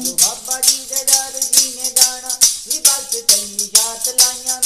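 Chimtas, long iron fire-tong clappers fitted with jingles, clashed in a steady beat of about two to three strikes a second, under a held melody line in a Punjabi devotional song (bhajan).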